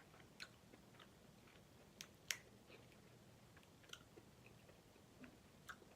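Faint, scattered clicks and cracks of king crab leg shells being broken open by hand, about five short snaps with quiet between them.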